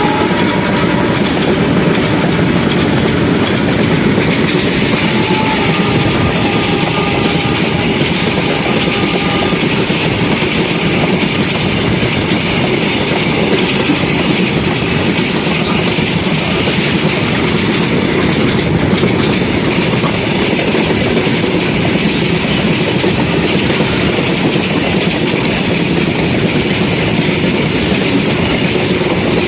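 A long train hauled by a WAG-9 electric locomotive passing close by, its wagon wheels clattering steadily over the rail joints. The last of a horn fades out in the first second.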